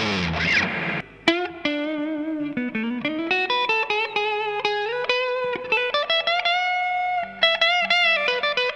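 Epiphone Explorer Pro electric guitar on its neck pickup, played through a Marshall DSL401 amp's clean channel with no effects: a single-note melodic lead line with vibrato and bends. It opens with a denser passage gliding down in pitch that breaks off about a second in.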